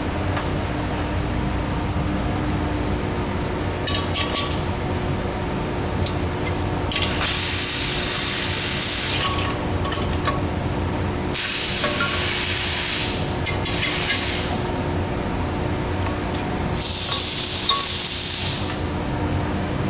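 Shop compressed air hissing from a blow gun in four bursts of one to two seconds, with a few metallic clinks of a wrench and clamps on a steel lathe face plate. A steady machine hum runs underneath.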